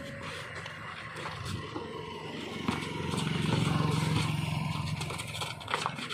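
A motor vehicle's engine hum passing on the road, swelling in the middle and then fading, with scattered knocks of a basketball on the concrete court.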